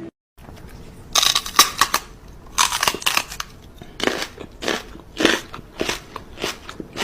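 Loud, crisp crunching, repeated at uneven intervals about once or twice a second, like something brittle being bitten and chewed.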